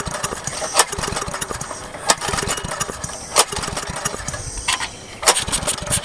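Briggs & Stratton lawn mower engine being pull-started several times in a row, each yank of the recoil starter cranking it without it staying running. The carburetor is not pumping fuel up from the tank, so it needs a rebuild.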